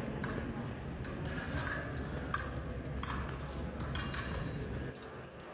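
Steel fencing blades clinking against each other in short, irregular contacts, about nine in all, over a low steady hum that stops near the end.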